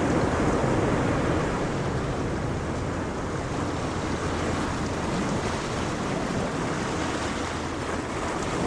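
Ocean waves washing on the shore, a steady surf noise that eases a little in the middle and swells again near the end.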